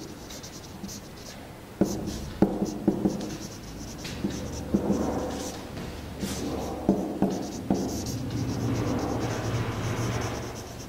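Marker pen writing on a whiteboard: scratchy, squeaking strokes broken by small sharp taps as each letter is put down and lifted.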